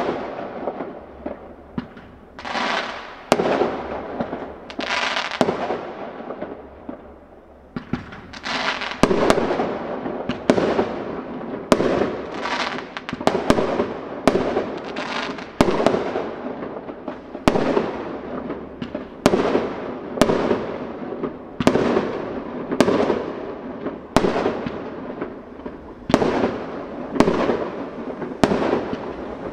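Aerial firework shells bursting one after another, each sharp bang trailing off in an echo. The bangs are spaced out at first, then come about once a second from about eight seconds in.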